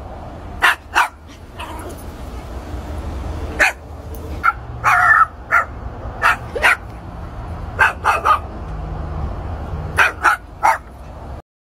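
Jack Russell terrier barking: about fifteen short, high-pitched yaps in quick pairs and threes with pauses between, over a low steady rumble. The sound cuts off abruptly near the end.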